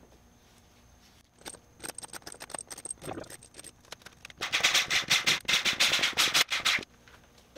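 Metal parts and bolts clinking and rattling as they are handled, then a Kobalt cordless impact wrench hammering on the bolts of a transaxle differential case for about two seconds, starting about four and a half seconds in.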